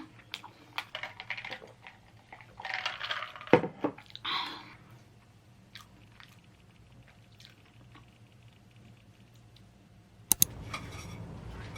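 Close chewing of a coconut choux pastry, with small mouth clicks and a couple of louder chewing bursts a few seconds in. A sharp click near the end is followed by a steady low hum.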